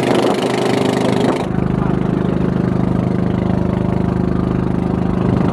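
Small wooden fishing boat's motor running at a steady speed, with a fast even pulse. Wind noise on the microphone for the first second and a half.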